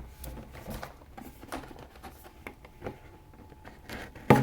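Action-figure packaging being handled during an unboxing: soft rustles and scattered small clicks of cardboard and plastic, with one sharper click near the end.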